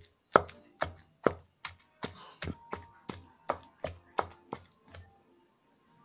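Pestle pounding wet chutney paste in a stone mortar: a steady run of about a dozen dull strikes, roughly two and a half a second, that stop about five seconds in. The paste is being coarse-ground by hand rather than in a mixer.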